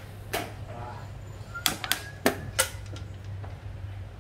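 Xiangqi pieces clacking down on a wooden board and the chess clock's buttons being pressed during a fast game: a series of sharp clicks, one about half a second in and a quick run of them in the middle, over a steady low hum.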